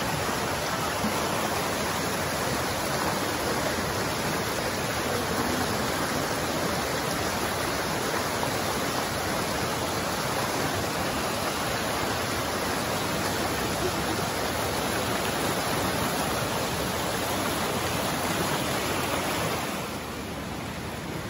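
Flood-swollen mountain creek rushing fast over rocks, a steady, loud rush of water. Near the end it drops somewhat quieter and duller.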